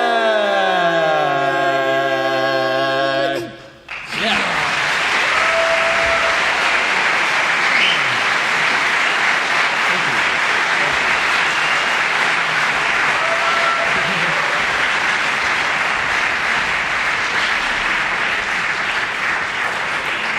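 Four-man barbershop quartet singing a cappella, its voices sliding down into a held final chord that cuts off about three and a half seconds in. Then a crowd applauds steadily.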